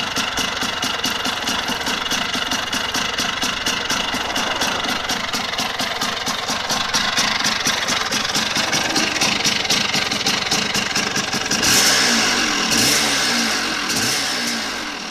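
Vespa 90's two-stroke Polini 133 cylinder kit with a Polini Banana expansion exhaust, idling steadily on its first run. Near the end the throttle is blipped a few times, the revs rising and falling quickly.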